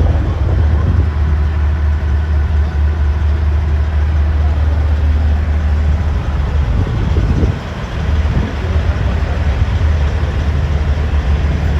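Truck engine idling: a steady low rumble, briefly dipping about two-thirds of the way through.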